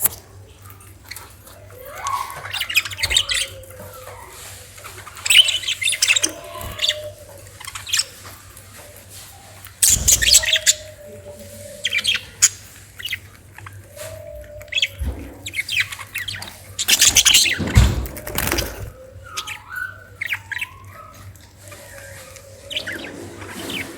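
Pet parrot chirping and squawking in short bursts every few seconds, the loudest near the middle and two-thirds of the way through.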